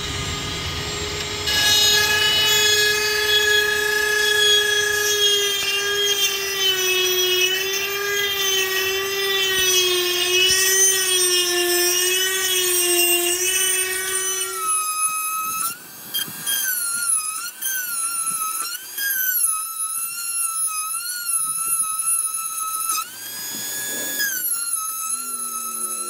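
Dremel rotary tool cutting into a steel door bracket: a high whine whose pitch sags slowly as it bites into the metal, then, about halfway through, a higher whine that rises and falls repeatedly as the load changes.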